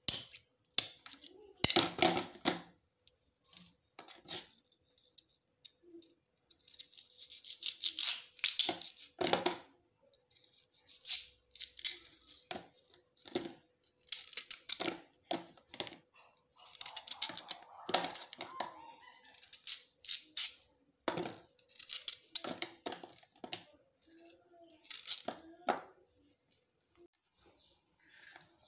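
A knife peeling and cutting a sugarcane stalk: irregular runs of scraping strokes as the blade strips the fibrous rind, with a few sharp chops as pieces are cut off.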